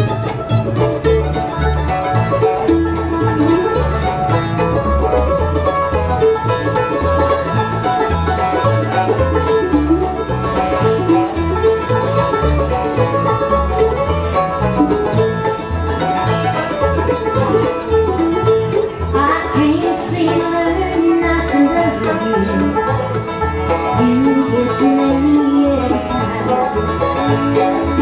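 Bluegrass band playing live: fiddle, mandolin, upright double bass, acoustic guitar and banjo together, with a steady bass pulse under the plucked strings and fiddle.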